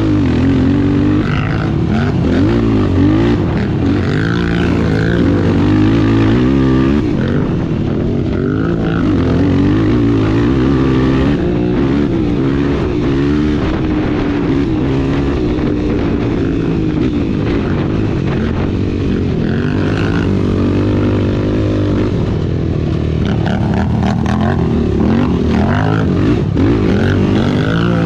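Off-road racing engine running hard and revving up and down continuously as it is ridden around the course, heard up close, with a few short clatters along the way.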